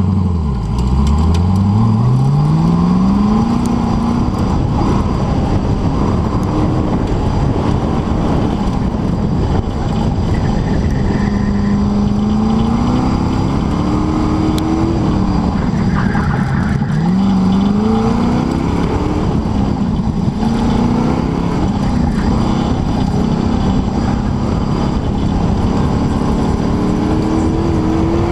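Open-wheel race car's engine heard onboard during an autocross run, its pitch climbing under acceleration and dropping off again and again as it works through the cone course.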